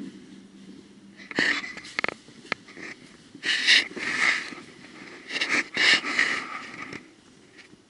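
A person breathing heavily close to the microphone: three long, noisy breaths about two seconds apart, with a few sharp knocks around the first.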